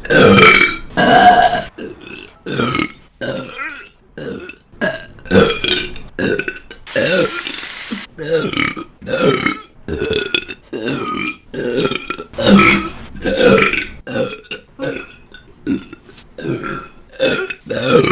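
A woman burping over and over: a rapid string of short, separate burps of varying pitch, cut one after another. A brief hiss comes about seven seconds in.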